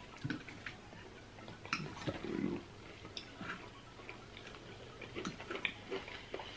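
Quiet eating sounds: scattered light clicks of plastic forks against plastic bowls, with soft chewing and mouth sounds.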